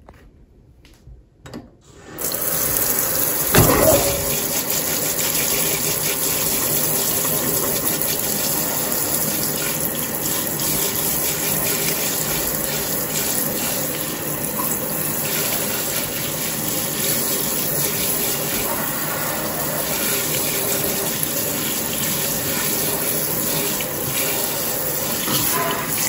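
Pull-down kitchen faucet spray running steadily, the water spraying onto plant roots in a stainless steel sink. It comes on about two seconds in, with a brief louder burst just after it starts.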